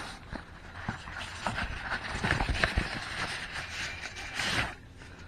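Rustling and light scraping of a white packing sheet and a cardboard box as the sheet is lifted off a new thermostat, with scattered small taps and a louder rustle near the end.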